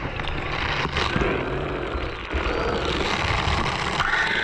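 Underwater drone's electric thrusters whirring steadily, heard underwater through the GoPro mounted on the drone.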